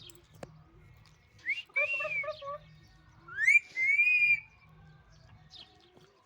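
Pet parrot whistling twice: a short whistle about a second and a half in, then a longer one that rises and levels off.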